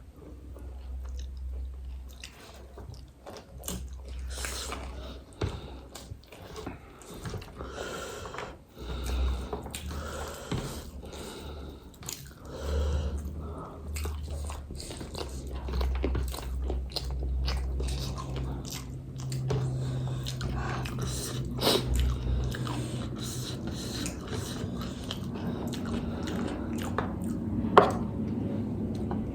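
Close-miked mukbang eating: people biting into and chewing crisp pani puri shells with irregular crunches and wet chewing, and a couple of sharper crunches near the end.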